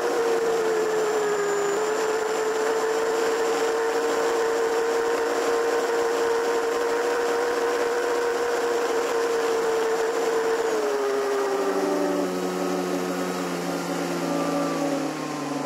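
Electric motor and propeller of an E-flite Piper Cherokee RC model airplane, heard from on board, running as a steady whine with a faint high-pitched whine above it. The pitch dips briefly about two seconds in. About eleven seconds in the throttle comes back: the pitch slides steadily lower and the sound gets a little quieter.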